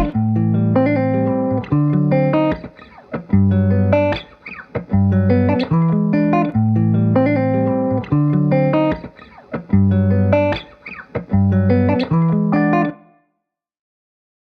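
Background music with plucked notes over a low bass line, which cuts off suddenly near the end.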